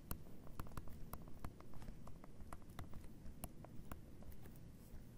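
Stylus tip tapping on a tablet screen while handwriting, an irregular string of light clicks, several a second.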